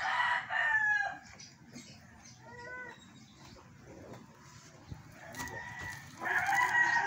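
A rooster crowing: one crow in the first second, ending in a falling note, and another about six seconds in, with a few short clucking calls between.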